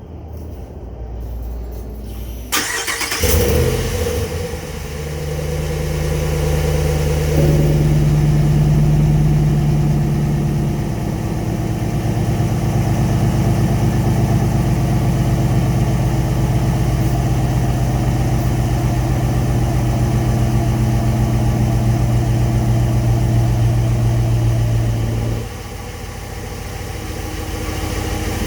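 Ram 1500 pickup engine starting up about two and a half seconds in and then idling steadily through an exhaust fitted with a newly installed electric cutout valve; the note settles lower partway through, and the exhaust gets noticeably quieter near the end.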